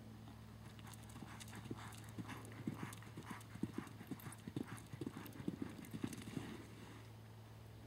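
Hoofbeats of an American Quarter Horse gelding under saddle on soft arena dirt, picking up into a lope and then dying away as the horse stops near the end.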